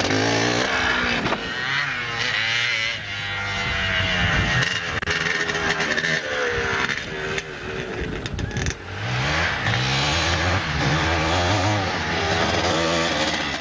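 Motocross motorcycle engines revving hard as the bikes pass, the pitch rising and falling with the throttle, with a rising run-up about nine seconds in.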